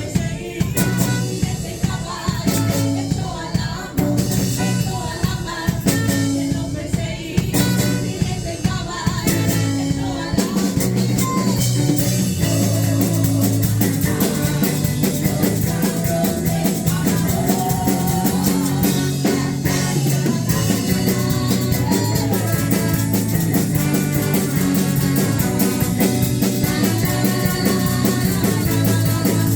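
Live worship band playing: sustained chords over a drum kit, with the drumming becoming busier and steadier partway through.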